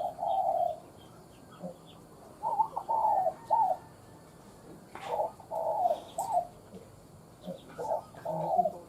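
Spotted dove cooing: four short phrases of low, soft coos separated by pauses of a second or more. It is the bird's calling song, a narrow-pitched voice of the kind used as a lure to draw wild doves.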